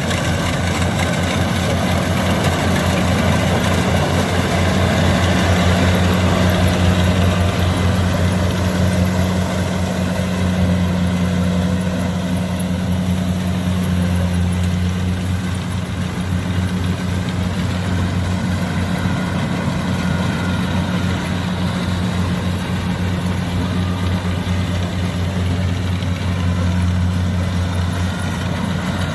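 Diesel engine of a Kubota DC70 combine harvester running steadily at a constant speed, a low even drone that neither rises nor falls.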